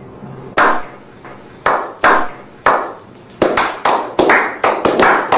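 Slow clap by a small group: one person claps slowly, about once a second, then others join and the clapping speeds up to several claps a second near the end.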